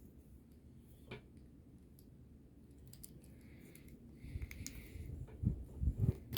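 Hands working a plastic PV solar cable connector: a sharp click about a second in, small plastic clicks and rustling, then a few dull knocks in the last two seconds as the parts are handled.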